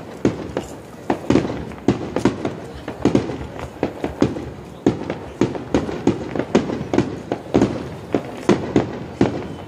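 Star mine, a rapid-fire Japanese fireworks barrage, going off: an uneven, continuous run of sharp bangs, several a second.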